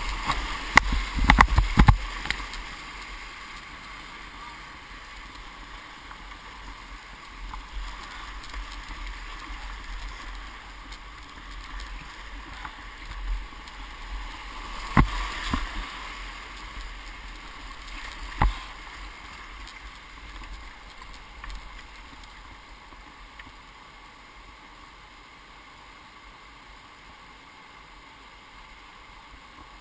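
Class II–III whitewater rushing around a kayak, with sharp splashes and knocks as the boat crashes through waves in the first couple of seconds and again twice around the middle. The rush gets quieter and steadier near the end as the water calms.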